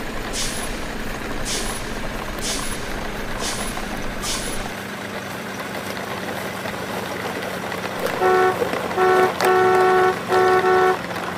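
Truck sound effects: a low engine rumble that drops away about halfway through, with short hisses about once a second during the first few seconds. Near the end a multi-tone truck horn toots four times, the third blast the longest.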